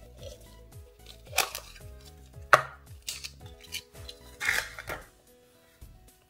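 Hollow plastic toy capsule being pulled open by hand: a few sharp plastic clicks and snaps, the loudest about two and a half seconds in, with short rustles of the paper insert and wrapper around the figure inside. Faint background music runs underneath.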